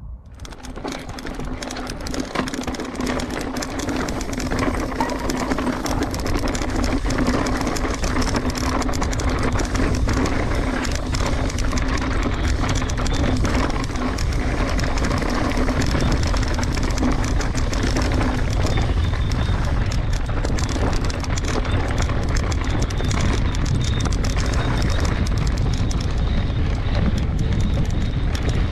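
Mountain bike descending a dirt and gravel fire road at speed, heard from the rider's action camera: wind buffeting the microphone, tyres rolling over loose gravel and the bike rattling over bumps, with a steady hum through the first two-thirds.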